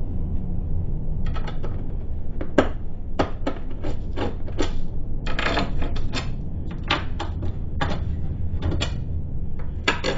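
Steel bolts clinking and tapping against the steel mounting plate and vise in a quick, irregular series starting about a second in, as the bolts are test-fitted through freshly drilled holes. A low steady hum runs underneath.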